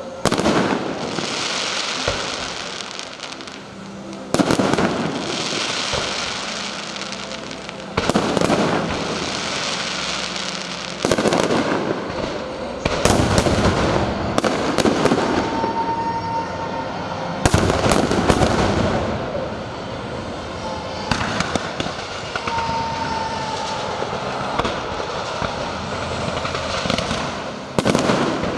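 Aerial fireworks display: about eight loud shell bursts, one every few seconds, each followed by several seconds of crackling as the shower falls.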